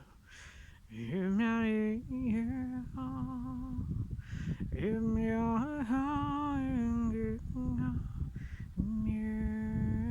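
A single voice humming a slow tune, holding long notes with small slides in pitch and breaking off every second or so.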